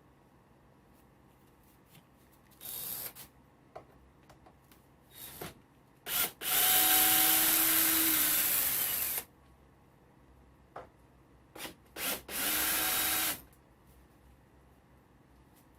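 Power drill running in several bursts, backing screws out of a 2x4: a short burst, then a long run of a couple of seconds, then a shorter one. Each run holds a steady motor hum.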